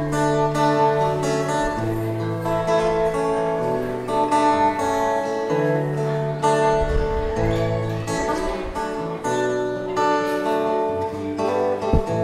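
Acoustic guitar music, chords strummed and picked, with the bass note changing every second or two.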